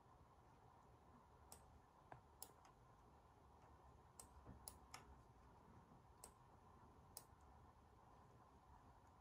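Near silence broken by about eight faint, sharp clicks of a computer mouse, scattered irregularly over several seconds, as the on-screen map is dragged and zoomed.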